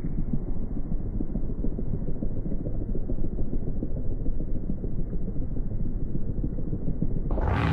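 Wind buffeting a phone microphone, a steady low rumble. It switches abruptly to a brighter rushing noise near the end.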